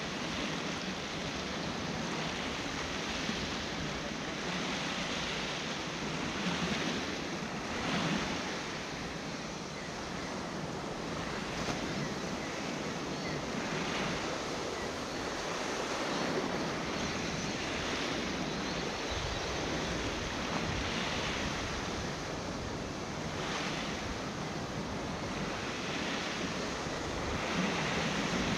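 Ocean surf washing over and lapping against the wall of a seaside rock pool, swelling and easing every few seconds, with wind buffeting the microphone.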